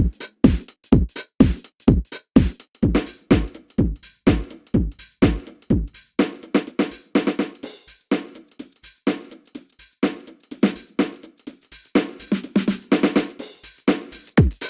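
Ketron SD90 drum samples played from an SF2 soundfont in a steady beat of about two strokes a second: low drum hits that drop quickly in pitch, with hi-hat or cymbal on top. About six seconds in, the pattern changes to denser, busier hits.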